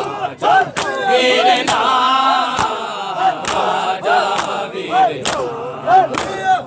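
A group of men chanting a noha refrain in unison, with a steady rhythm of sharp slaps from mourners beating their chests in matam.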